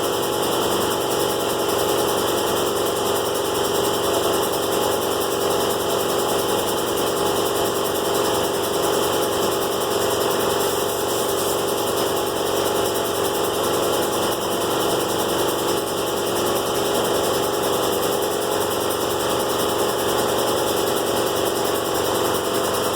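Air compressor running steadily, its motor and pump making an unbroken mechanical drone.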